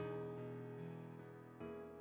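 Soft background music on a keyboard: slow chords struck at the start and again about one and a half seconds in, each left to ring and fade.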